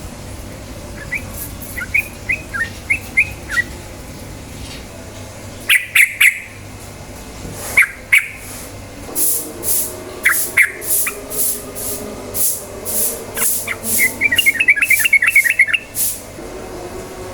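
Yellow-vented bulbul (trucukan) calling: scattered short chirps, a few louder single calls, then a fast bubbling run of notes near the end. A series of sharp high hissy strokes runs through the second half, over a steady low hum.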